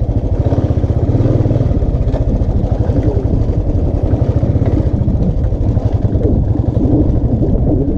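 Royal Enfield single-cylinder motorcycle engine running steadily while riding, a fast, even train of firing pulses.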